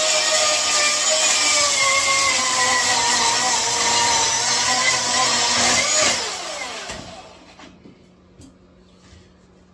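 Milwaukee M18 Fuel cordless electric chainsaw cutting through a log, its motor whine sagging slightly in pitch under load. At about six seconds the trigger is released and the saw spins down, followed by a thump at the very end.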